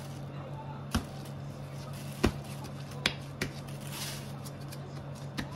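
Dough being folded and pressed down by hand on a plastic cutting board, giving five short knocks, the loudest about two seconds in, over a steady low hum. A brief plastic rustle comes near the middle.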